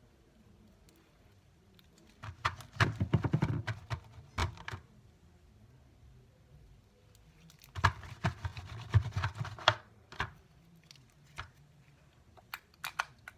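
Clear slime being squeezed and kneaded by hand, giving two runs of rapid wet clicks and pops, each about two seconds long, with a few single pops near the end. The slime had melted and is being reactivated.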